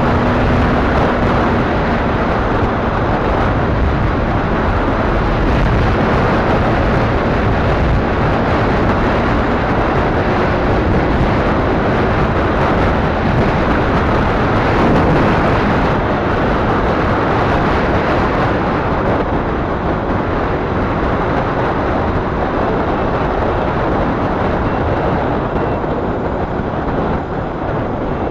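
Steady rush of wind across the microphone on a motorcycle riding at speed, with road and engine noise mixed in; it eases a little near the end.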